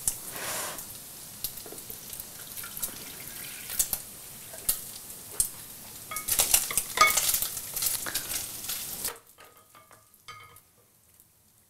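Lardons sizzling in fat in a stainless steel frying pan, a steady hiss with scattered clicks and clatter. The sizzling cuts off abruptly about nine seconds in, leaving only a few faint taps.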